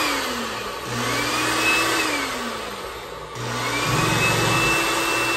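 Rug Doctor carpet cleaner's motor being switched on and off: it winds down at the start, spins up with a rising whine about a second in, winds down again around two seconds, then spins up once more a little after three seconds and keeps running. A low hum sounds while it is powered. This is the test run after a power cord replacement, showing the machine now gets power.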